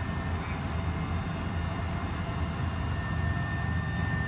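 Steady low engine drone of aircraft cabin noise, the soundtrack of aerial footage played over the hall's speakers, with a faint high steady tone joining about three seconds in.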